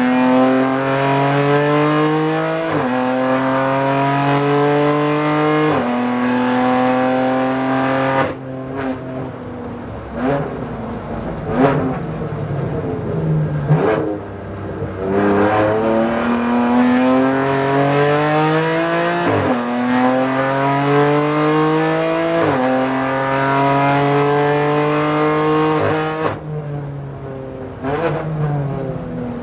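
BMW M4 GT4 race car's twin-turbo straight-six, heard from inside the cockpit, pulling hard and rising in pitch, with the pitch dropping sharply at two quick upshifts. It then lifts off for a corner, with throttle-blipped downshifts. It pulls up through two more upshifts and lifts off again near the end.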